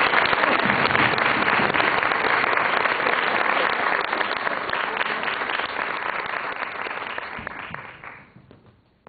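Audience applauding, a dense patter of many hands that dies away about eight seconds in.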